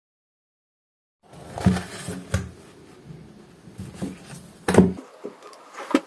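Objects being handled indoors: a few light knocks and clatters, spaced a second or so apart, over a low room hum, after about a second of silence.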